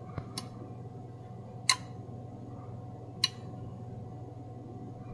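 A few sharp clicks over a steady low hum. The loudest click comes just under two seconds in and another about three seconds in.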